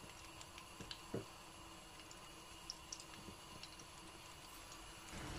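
Faint, scattered soft taps and small clicks as chicken koftas are set one at a time into lightly warmed oil in a non-stick kadai.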